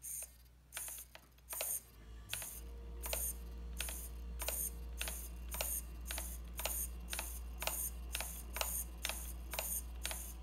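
KST X08 v5.0 micro servo running at 6 volts, sweeping its arm back and forth: a short high-pitched whir ending in a click on each stroke, about two to three strokes a second. A steady low hum joins about two seconds in.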